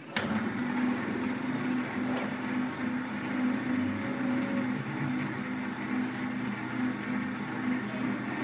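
Vertical slow juicer switched on: a click, then its motor starts at once and keeps running with a steady low hum.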